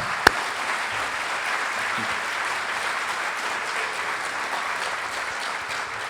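Audience applauding steadily, with two sharp, close single claps at the very start.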